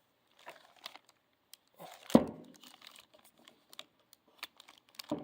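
Crinkling packaging and handling noise as a horn tweeter is turned over in the hands: scattered light clicks and rustles, with one louder knock about two seconds in.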